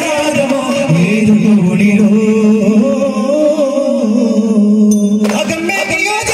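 Daf muttu performance: a male voice singing, holding one long note from about a second in, over the beat of handheld daf frame drums. The full sound of drums and voices picks up again near the end.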